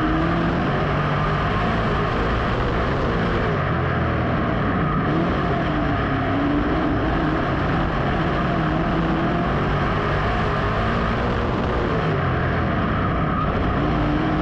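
Dirt modified race car's V8 engine running at race speed, heard from on board, its pitch rising and falling every few seconds as it goes on and off the throttle through the corners, over a steady rush of noise.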